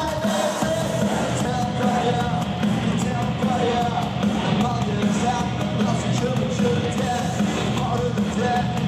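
Rock band playing live, with a drum kit and cymbals keeping the beat under the rest of the band.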